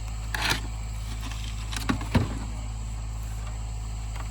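An engine running steadily with a low, even hum. A short rustling burst comes about half a second in, and two sharp knocks come close together around two seconds in.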